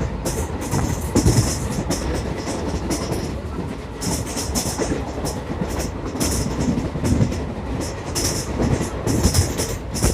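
Rumble and clatter of a moving express train's coach at speed, wheels running over the rails, with irregular hissing bursts over a steady rumble.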